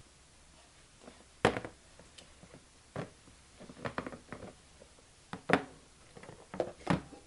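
Clear plastic storage boxes knocking and clattering as they are handled, separated and set down on a table: a string of sharp, irregular knocks, the loudest about one and a half and five and a half seconds in.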